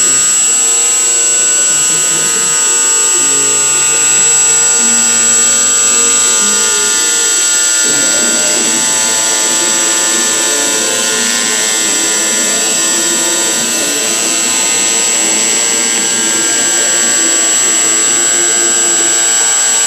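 MPCNC router cutting craft foam: its Emax 2822 brushless motor, used as the spindle at about 6000 rpm, whines steadily and high, while the machine's stepper motors hum underneath, jumping between pitches in steps as the tool changes direction and speed.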